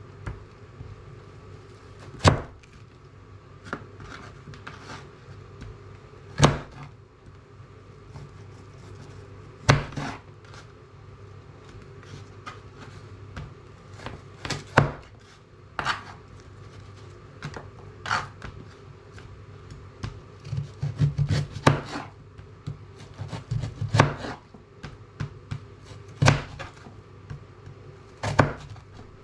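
Chef's knife chopping vegetables on a plastic chopping board: single sharp knocks every two or three seconds, with a quicker run of cuts a little past two-thirds of the way through.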